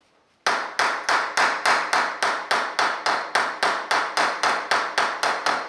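Hand hammer blows on masonry, a fast, even run of sharp knocks, between three and four a second, starting about half a second in.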